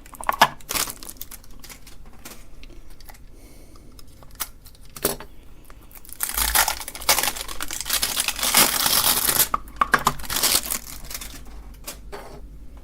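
Plastic packaging crinkling and tearing as it is handled and opened, in irregular rustles with a few small clicks, busiest in the middle of the stretch.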